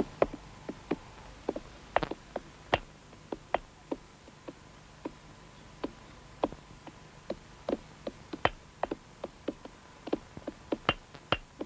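Irregular sharp clicks and pops, two or three a second, over a faint steady hum: the crackle and hum of a worn old film soundtrack.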